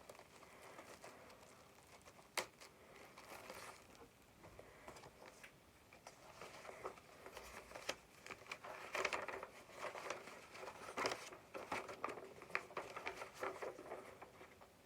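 Packaging crinkling and rustling as something is worked out of a box by hand, irregular crackles with one sharp click about two seconds in and busier rustling in the second half.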